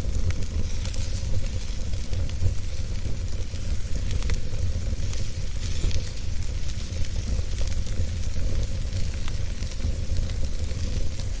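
Wood fire burning in a fire pit, with scattered sharp crackles and pops over a steady low rumble.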